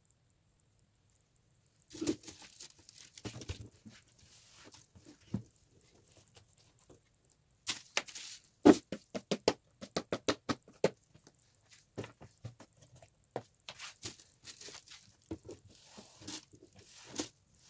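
A desktop being cleaned by hand: short knocks and taps of small items being handled and set down, and a cloth rubbing across the desk in quick strokes, in irregular bursts starting about two seconds in.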